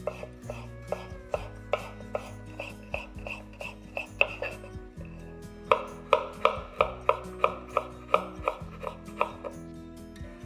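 Kitchen knife slicing carrots on a wooden cutting board: a steady run of sharp chops, about three a second, louder and crisper through the middle stretch. Soft background music runs underneath.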